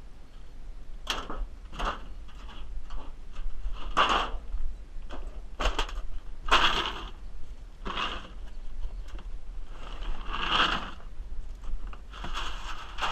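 Toy remote-control car's small electric motor and plastic gears whirring in short, irregular bursts as the throttle is pressed and released, about eight times. It makes the loud noise the car now gives off when it runs.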